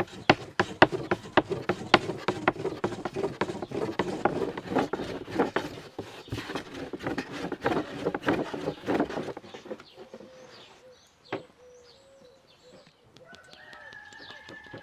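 Wooden rolling pin rolling dough flat on a wooden board, with quick, dense clattering knocks as the pin rolls and taps against the board for about nine seconds. Near the end, oil pours from a clay jug into a cast-iron pan as a steady, slightly rising trickle.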